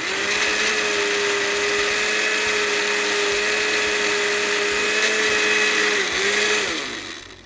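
Countertop blender motor running steadily at high speed, blending a thin mango-lime drink in a second run. About six seconds in it dips, then winds down with a falling pitch as it is switched off.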